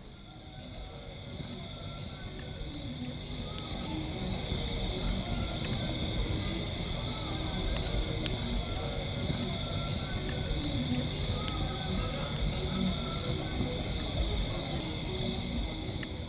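Night insect chorus: crickets and other insects trilling steadily in several high bands, one of them pulsing fast and evenly, over a low rumbling background. It fades in over the first few seconds.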